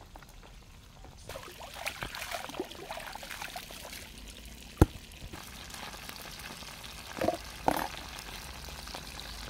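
Water splashing in a shallow stream, then fish sizzling in a pan of hot oil. A single sharp click comes about halfway through, and two short louder sounds come near the end.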